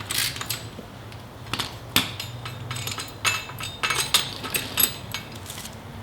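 Hand tools and metal parts clinking and knocking irregularly during work on a car's front strut assembly, with a sharp knock about two seconds in and a run of clinks a second or so later.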